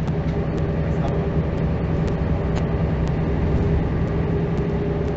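Mercedes-Benz O405 city bus running, heard from inside: a steady diesel engine hum with a regular light tick about twice a second.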